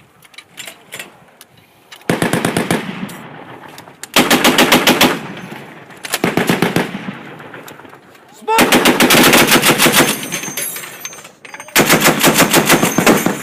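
M2 .50-calibre heavy machine gun firing five short bursts of rapid, evenly spaced shots, each about a second long and about two seconds apart, with a rumbling echo fading after each. A few faint scattered shots come before the first burst.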